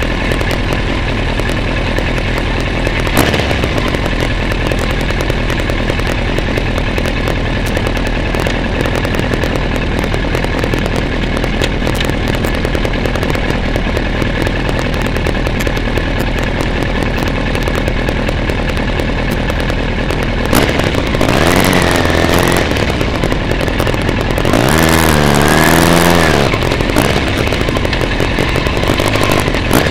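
Motorcycle engine running steadily at low revs, then revving up and down twice as the bike pulls away, about 21 and 25 seconds in.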